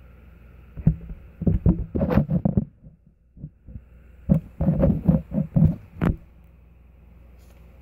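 Hands squeezing and pressing a squishy foam toy, in two bursts of quick soft squishing strokes about two seconds each, with a pause between them.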